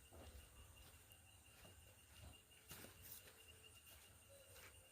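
Near silence: faint outdoor background with a steady faint high tone, a low rumble and a few soft clicks.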